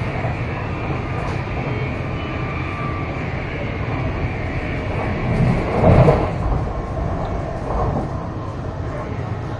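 MTR East Rail Line electric train running, heard from inside the carriage: a steady rumble of wheels on rail with running hum, swelling briefly louder a little past halfway.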